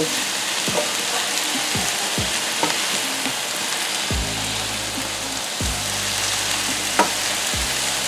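Sliced onions, carrots and bell peppers sizzling in oil in a frying pan, stirred with a wooden spoon: a steady frying hiss, with a single sharp knock about seven seconds in.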